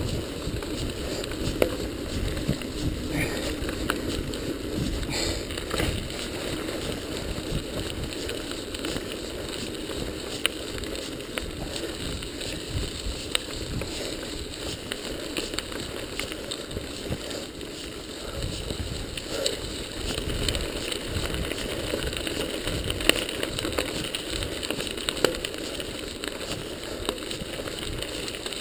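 Mountain bike riding down a gravel forest road, heard from a rider-mounted action camera: a steady low rumble of wind and tyres on loose stone, with frequent sharp clicks and knocks from stones and the bike rattling.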